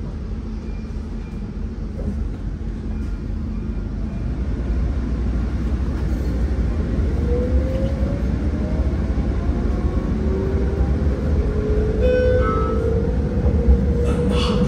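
Tram running, heard from inside the passenger car: a steady low rumble that slowly grows louder. From about halfway through, a thin electric whine rises slowly in pitch.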